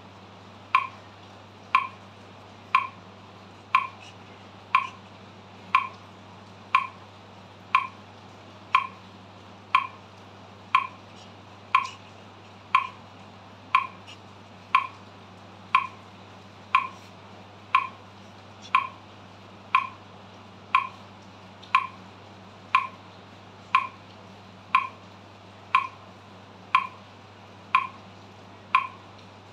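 Metronome clicking steadily at 60 beats per minute, one sharp tick each second, over a faint low hum.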